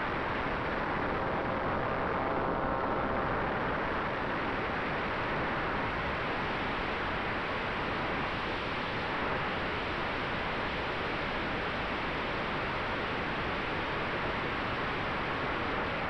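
Steady rushing airflow on an onboard camera aboard a flying RC model ASW28 glider, with a faint steady hum from its nose-mounted propeller motor running underneath.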